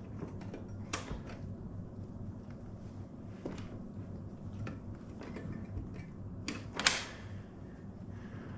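Hands working a part loose at the back of a Harley-Davidson touring motorcycle: scattered clicks and knocks of the part being handled, the loudest about two-thirds of the way through.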